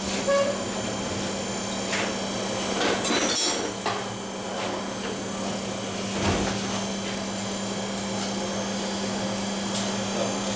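Blacksmith's workshop sound: a steady hum with scattered metal knocks and clatters every few seconds, the loudest about three and six seconds in.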